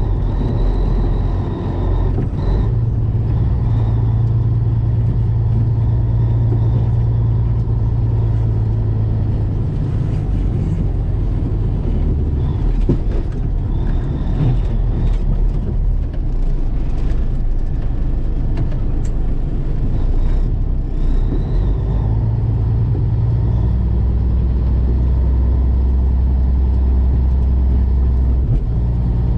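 Heavy diesel truck engine running as a loud, steady low hum. Its pitch shifts a few times as the engine speed changes.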